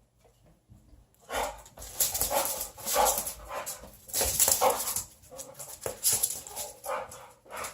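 Boxer dog excitedly going after a laser dot, making whimpering and scuffling noises in loud, irregular bursts that start about a second in.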